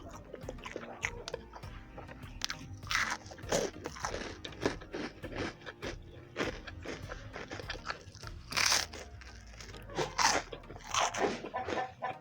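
A person biting and chewing food close to the microphone, with several louder crunching bites among many small wet clicks of chewing.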